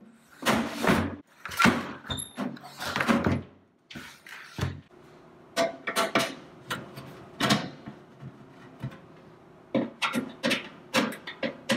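Sheet-metal case of an Oster toaster oven knocking and clattering as it is handled and turned over, then sharper metallic clicks as a screwdriver is set to the screws of its housing near the end.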